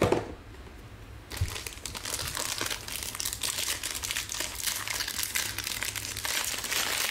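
A brief knock, then the gold foil wrapper of a trading-card pack being crinkled and torn open by hand, the crinkling starting about a second in and going on steadily.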